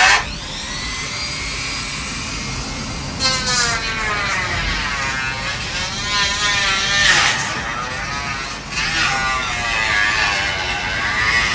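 Handheld electric power tool cutting a car fender. It makes a buzzing whine whose pitch wavers up and down as the cut loads and unloads it.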